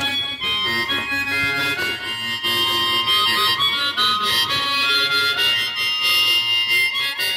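Harmonica (mouth organ) playing a tune, a melody of held notes and chords that shift every fraction of a second.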